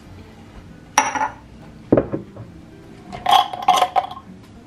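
Glassware and a jar's metal lid clinking and knocking as a jar of preserved citron is opened beside a glass mug. There is one sharp ringing clink about a second in, a dull knock near two seconds, and a quick run of ringing clinks near the end.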